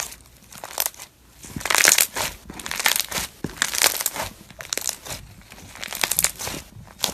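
Crunchy slime being squeezed and pressed, crackling and popping in repeated irregular bursts.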